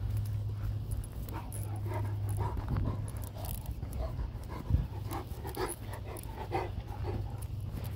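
Great Dane panting in short, quick breaths, over a steady low rumble, with one sharp knock about halfway through.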